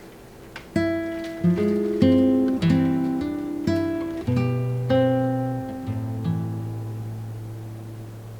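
Guitar melody of plucked notes, each ringing and fading, beginning after a short lull about a second in.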